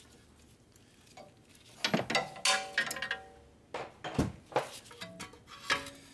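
Scattered light metallic clinks and knocks from brake parts being handled: the brake pad and its fittings against the caliper, a few with a short ring, the heaviest knock about four seconds in.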